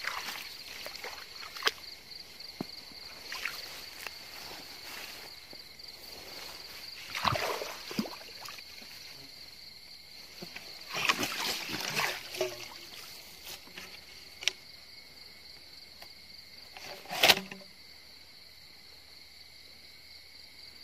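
Night insects trilling steadily and high-pitched, over footsteps rustling and splashing through wet grass and weeds, in several bursts, with a sharp thump about seventeen seconds in.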